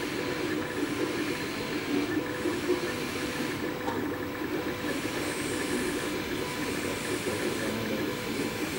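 MakerBot 3D printer printing: its stepper motors whir in a rapid run of short tones that keep changing pitch as the extruder head moves back and forth, over a steady hum from the printer's fans.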